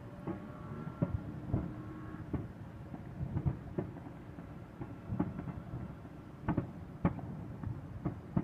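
Fireworks bursting: an uneven string of bangs and pops over a low rumble, the sharpest about seven seconds in.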